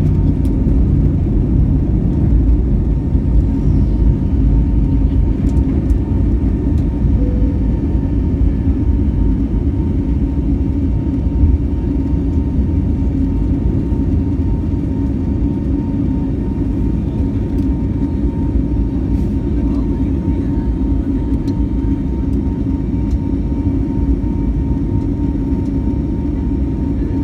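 Airbus A320 jet engines and airflow making a steady low rumble, with a thin steady whine above it.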